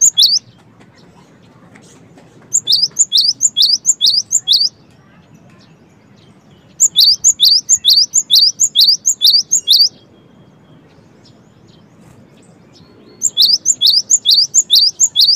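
Cinereous tit (gelatik batu) singing loud bouts of its fast, repeated high two-note phrase, about four or five notes a second, each bout lasting two to three seconds with short pauses between. One bout is ending at the start, then three more follow, the last running on past the end.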